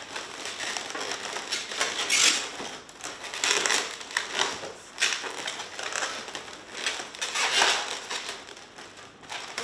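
Inflated latex modelling balloons rubbing and squeaking against each other and against the hands as they are twisted and wrapped together, in a string of irregular scrunching rubs.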